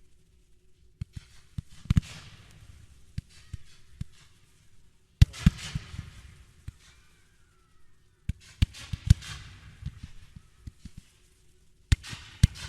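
Fireworks display: aerial shells bursting in about four volleys, each sharp bang followed by a few seconds of crackling.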